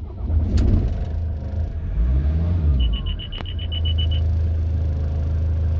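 2008 Ford Transit Mk7 van's diesel engine starting up, rising and falling once in revs about two seconds in, then settling into a steady idle with lots of rattles. A quick run of high electronic beeps sounds about three seconds in.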